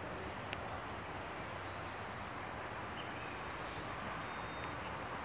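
Quiet outdoor ambience: a steady background hiss with faint, scattered high bird chirps.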